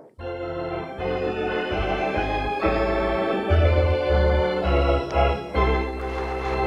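Background music: sustained organ-like keyboard chords over a bass line that changes notes every second or so, starting abruptly just after a cut.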